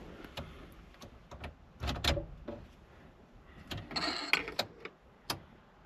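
A few sharp clicks and knocks, with rustling handling noise, as a key is put into the ignition lock on the steering column and turned.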